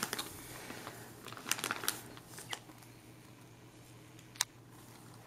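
Bubble wrap and plastic bags crinkling and rustling as hands dig through packing in a cardboard box, busiest in the first two seconds, with one sharp click a little after four seconds in.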